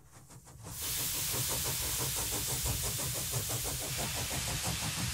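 Steam engine sound running under a steady hiss with a rapid, regular beat and a low rumble, fading in over the first second.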